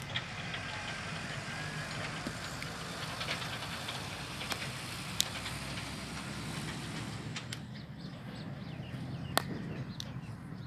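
A cricket ball cracking off a cricket bat twice, about four seconds apart, with a few fainter clicks between, over a steady low hum.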